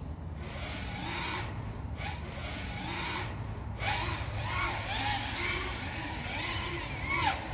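5-inch FPV freestyle quadcopter's brushless motors (iFlight Xing-E Pro 2306 1700kv on Gemfan 51466 propellers) whining, the pitch swooping up and down again and again as the throttle is punched and eased, with a louder swoop near the end.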